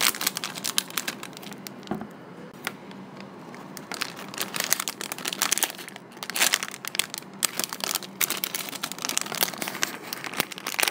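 Clear plastic bags crinkling as hands squeeze and turn the plush toys sealed inside them: dense, irregular crackling in bursts.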